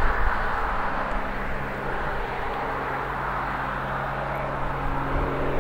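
Lockheed C-130J Hercules turboprops running on the ground, heard from a distance: a steady rushing noise with a low, steady hum that grows clearer about halfway through.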